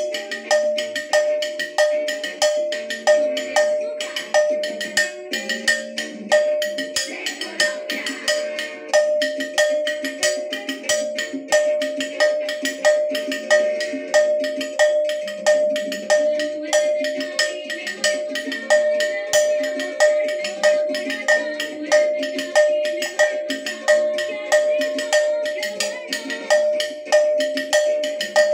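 A handheld cowbell struck with a wooden drumstick in a steady, regular beat, each stroke ringing at one clear metallic pitch. Other music with changing tones plays along underneath.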